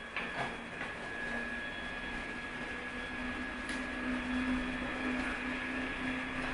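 Compact cabinet-type induction gold melting furnace running with a steady hum that grows stronger about a second in, over a steady high whine and a few light ticks near the start.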